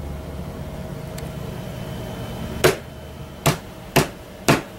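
A low steady hum, then, from about halfway through, four sharp knocks on a tabletop about half a second apart. The knocks send sound waves through the table into a piezoelectric pickup to make voltage.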